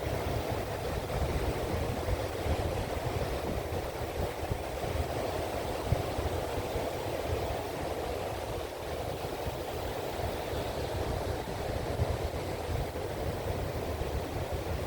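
Wind buffeting the microphone in a low, uneven rumble over a steady rush of surf, with a couple of sharper gust thumps, one about six seconds in and one about twelve.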